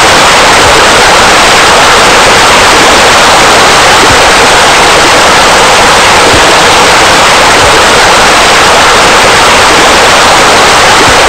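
Loud, steady rushing of splashing water, like pool bubblers and a sheer water feature running, with no change in level.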